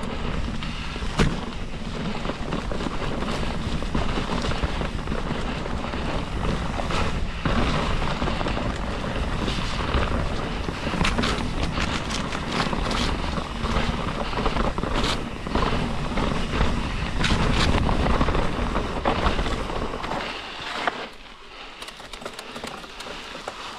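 Commencal Meta mountain bike being ridden over a rough trail: a steady low rumble of tyres rolling over the ground, with frequent sharp clicks and knocks as the bike rattles over roots and rocks. It eases somewhat near the end.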